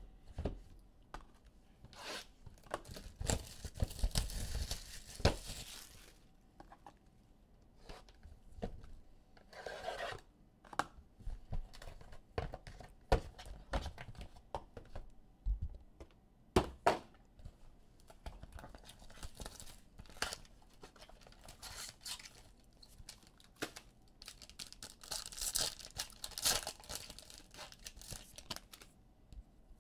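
Trading-card packaging being torn open and crinkled by hand, with longer bursts of tearing about three to six seconds in and again around twenty-five seconds. Short clicks and taps from cards and cardboard being handled fall in between.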